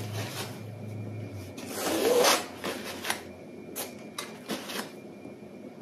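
Steel palette knife scraping and tapping on a canvas while spreading acrylic paint: a longer scrape about two seconds in, then several short taps.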